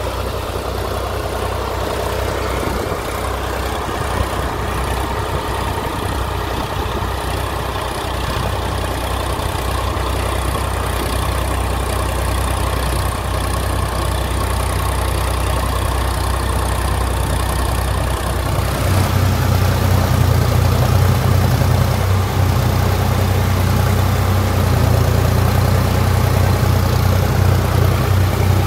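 Sonalika Sikandar tractor's diesel engine running steadily while it pulls a rotavator through a flooded paddy field. About two-thirds of the way through, the sound jumps to the driver's seat and becomes louder, with a stronger low throb.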